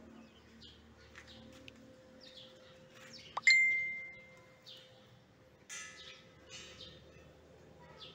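A single sharp metallic clang about three and a half seconds in, ringing briefly as it fades. Repeated short bird chirps sound throughout.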